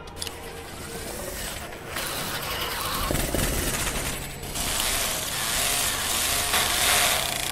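Electric pencil sharpener grinding harshly on a metal ballpoint pen forced into it. The noise builds and gets louder about halfway through.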